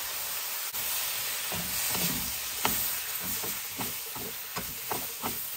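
Vegetables sizzling in a hot carbon steel wok. From about a second and a half in, a quick run of short scrapes, about three a second, comes from two wooden spatulas tossing them.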